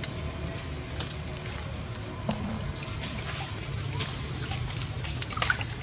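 Water splashing and sloshing in a large ceramic water jar as a baby monkey thrashes in it and other monkeys paw at the surface, with a few sharp taps.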